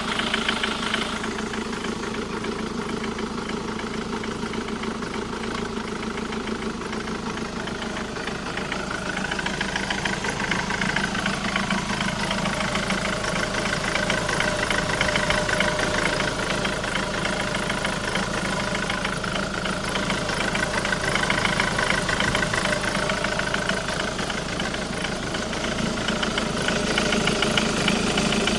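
Jaguar X-Type 2.0d's four-cylinder diesel engine idling steadily, with a rapid, even knocking and rattling from the driver's side of the engine whose cause the owner cannot find.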